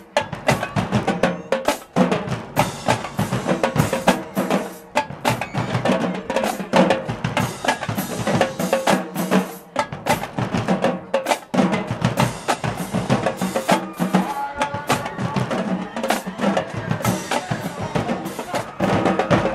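Marching band drumline playing a cadence of rapid snare and bass drum strokes.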